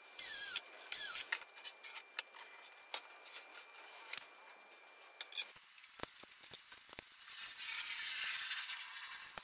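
Cordless screwdriver running in two short bursts, each winding down in pitch as it stops, driving a screw into the wooden frame. Then scattered clicks and knocks of parts being handled, and a scraping rustle lasting about a second and a half near the end.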